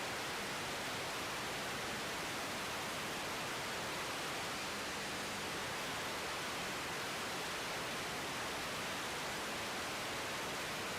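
Steady, even hiss of static on the air traffic control radio feed between transmissions.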